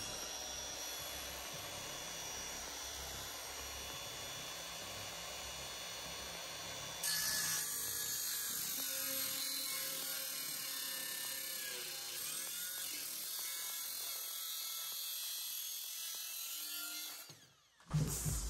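Cordless circular saw running and cutting through a 2x4 pine block, a steady high whine that gets louder and harsher about seven seconds in and cuts off suddenly near the end.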